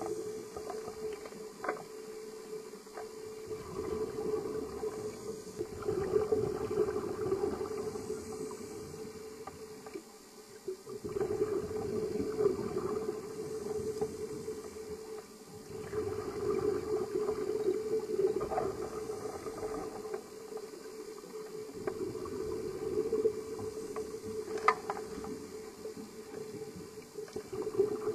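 Scuba diver's breathing through a regulator, heard underwater: bubbly exhalations swelling and fading every four to five seconds, over a steady hum.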